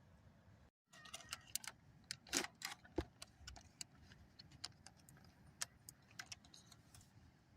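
Scattered small clicks, taps and light clatter of things being handled at close range, the loudest a few knocks around two to three seconds in. The sound cuts out completely for a moment just under a second in.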